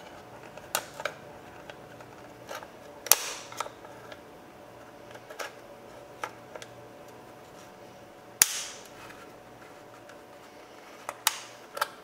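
Flat-blade screwdriver prying at the lock-cylinder retaining clip of a removed truck door handle: scattered sharp clicks and snaps, the two loudest about three seconds and eight seconds in, each with a short ring.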